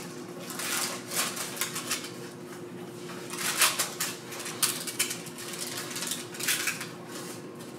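Metal spatula scraping and pushing granola across parchment-lined baking sheets: irregular rustling scrapes and light clatters of the clusters, in bunches a few seconds apart. A faint steady hum runs underneath.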